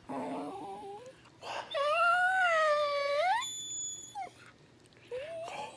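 Small terrier-mix dog howling: one long howl of about a second and a half that sweeps upward at its end, with shorter wavering howl notes before and after it.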